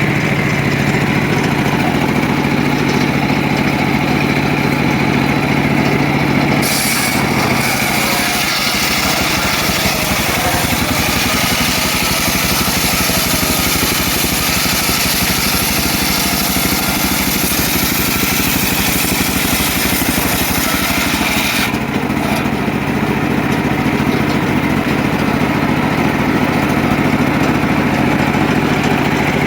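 Engine-driven homemade circular sawmill running steadily. From about a quarter of the way in to about three quarters, its blade cuts through a mahogany log and a bright hiss of sawing rises over the engine note. The hiss then falls back to the machine running free.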